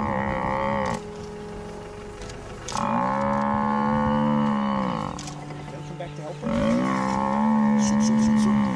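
African (Cape) buffalo bellowing in distress while pinned by lionesses: long, drawn-out moaning calls, three in all. The first breaks off about a second in, and the next two last about two seconds each.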